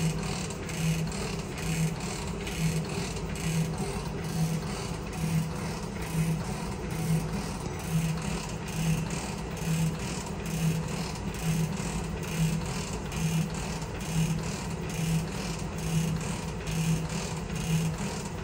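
Stanko 7A420 vertical slotting machine running with its table cross travel under power feed: a steady mechanical hum with a regular low pulse about every three quarters of a second.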